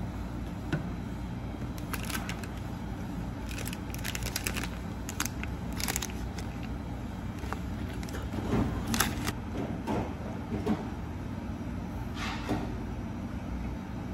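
Plastic film wrapper of an onigiri rice ball crinkling and tearing in several short spells as it is opened, over a steady low room hum.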